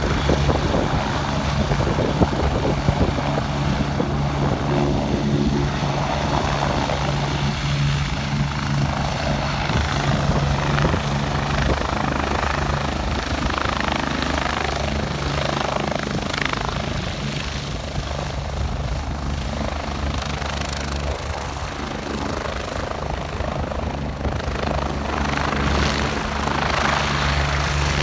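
Twin-engine helicopter in low flight, its rotor and engines making a loud, steady drone that eases a little past the middle and builds again near the end.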